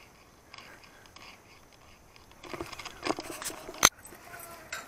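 Chain-link gate and its metal latch rattling and clinking as it is worked open, starting about halfway through, with one sharp metallic clank near the end.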